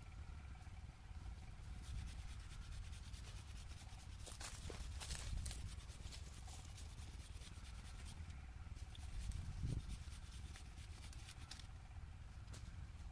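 Faint rustling and crackling of leaves and branches over a low wind rumble, busiest about four to five and a half seconds in.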